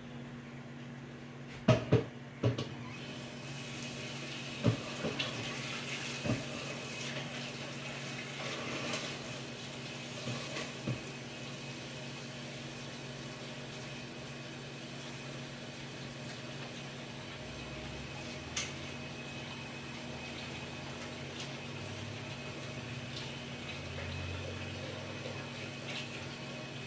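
Kitchen tap running steadily, filling a pot with water. A few sharp knocks come about two seconds in, as the pot is set down and handled.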